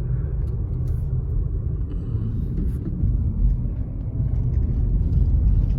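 Steady low rumble, with no speech.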